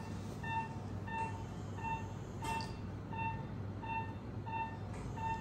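Operating-room patient monitor beeping in time with the pulse, one short steady-pitched beep roughly every 0.7 seconds, over a low steady equipment hum. A brief click sounds about halfway through.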